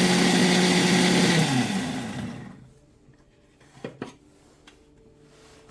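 Electric kitchen mixer grinder running at a steady speed, then switched off about a second and a half in, its motor falling in pitch as it winds down. Two light knocks follow about four seconds in.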